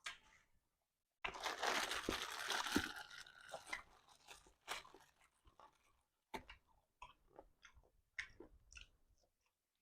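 A person chewing and crunching stewed chicken feet close to the microphone: a dense stretch of crunching about a second in, then separate crunchy bites.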